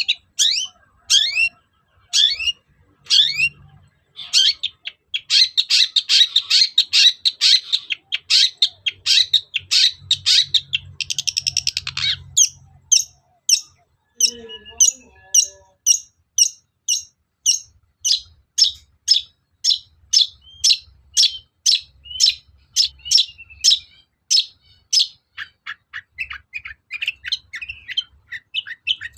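Long-tailed shrike (cendet) singing: a long run of sharp, high, downward-sweeping notes, breaking into a fast dense chatter and a brief buzzy rattle in the middle, then settling into a steady series of about two notes a second. It is a lure recording used to provoke caged shrikes into answering.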